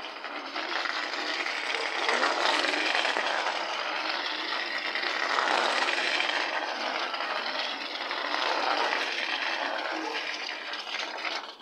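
Small homemade toy car pulled on a string across brick paving, its wheels and body rolling and rattling on the bricks. A steady scraping rumble that swells as the car passes close by, then stops suddenly.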